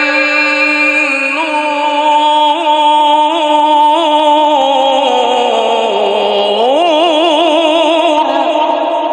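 Male Quran reciter's voice in a long, melodic tajweed recitation, each held note ornamented with a wavering trill. The pitch sinks slowly through the middle, then climbs sharply back up about two-thirds of the way in.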